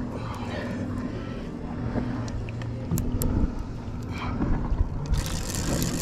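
A boat engine idles steadily. Over it come a few sharp metallic clicks and scrapes as the handle of a large conventional fishing reel is handled, with a burst of rustling scrape near the end.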